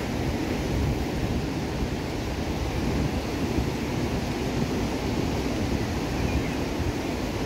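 Ocean surf breaking and washing up the beach, with wind buffeting the microphone in a steady, rumbling rush.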